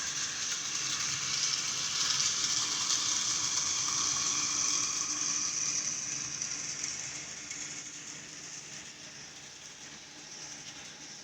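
HO scale model train running on track: locomotive motors and gears whirring and wheels rolling over the rails, a steady hissing rattle that grows fainter over the second half.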